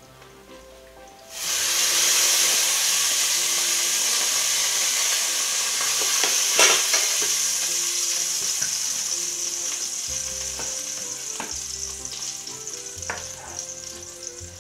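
Food sizzling in a hot pan. A loud hiss sets in suddenly about a second and a half in, then slowly dies away, with a few clicks, over quiet background music.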